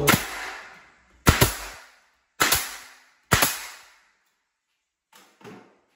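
Pneumatic nail gun firing four nails into a wooden door frame, about a second apart, each shot a sharp crack followed by a short fading hiss of air.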